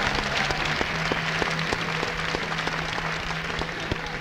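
Concert audience applauding as a big band piece ends. A low steady note is held underneath, and the clapping eases off slowly.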